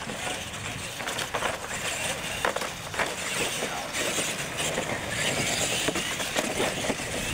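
Radio-controlled scale monster trucks racing across concrete, their tyres and chassis rattling over ramps and obstacle mats, with several sharp knocks as they hit ramps and land.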